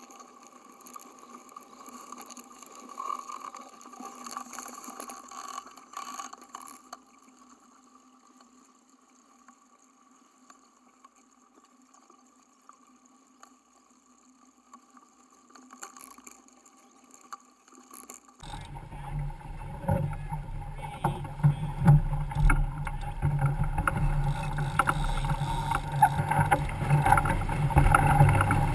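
A faint, thin sound with no low end, during the boat's fast-forwarded footage. About two-thirds of the way in, a much louder rush of wind and water around a racing sailboat under way takes over, uneven and gusty, heard on the boat's mounted camera.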